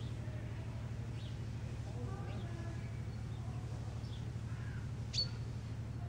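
Scattered faint bird calls over a steady low hum. A single sharp click with a brief high ring a little after five seconds is the loudest sound.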